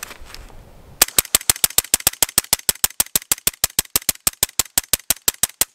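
Rapid string of suppressed rifle shots, about seven a second and about thirty in all, from an AR-15-style Noveske N4 fitted with a Q Trash Panda all-titanium silencer. The shots start about a second in, the first being the loudest.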